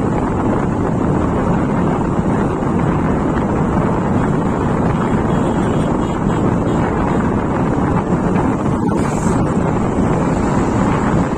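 Wind buffeting the microphone: a steady, loud, low rumbling noise with no distinct events.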